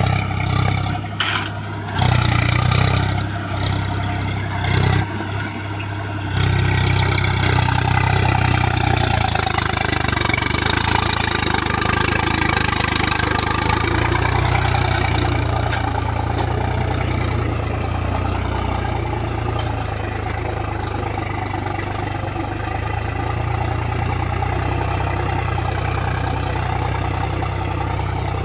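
Swaraj 735 FE tractor's three-cylinder diesel engine running steadily under load as it pulls a tine cultivator through wet soil. The level jumps and dips abruptly a few times in the first several seconds, then holds steady.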